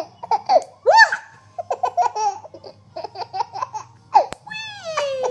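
Baby giggling and laughing in short repeated bursts. About four seconds in there is a single sharp click, followed by a long falling vocal squeal near the end.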